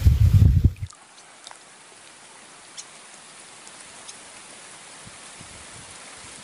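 Wind buffeting the microphone as a loud low rumble, cut off abruptly about a second in. It is followed by a steady, quiet outdoor hiss with a few faint scattered ticks.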